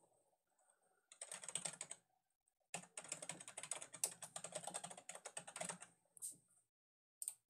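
Typing on a computer keyboard: a short run of keystrokes about a second in, then a longer run of about three seconds, followed by two single clicks near the end.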